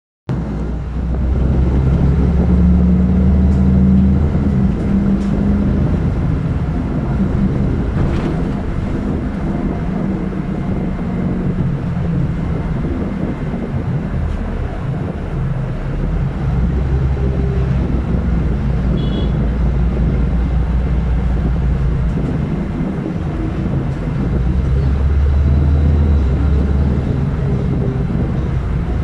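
City bus engine and road rumble heard from inside at the rear of the bus, a steady low drone that swells and eases as the bus moves through traffic, with one sharp knock about eight seconds in.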